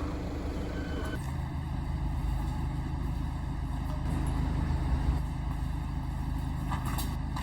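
Steady low vehicle rumble, like a car's engine and road noise; its character changes abruptly about a second in.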